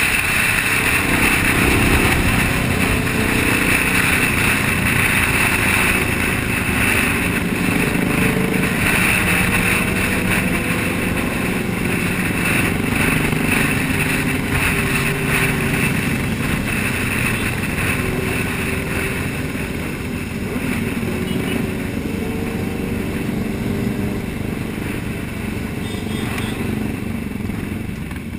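Motorcycle engines running steadily at road speed in a large group, heard from a rider's helmet camera with loud wind rush over the microphone.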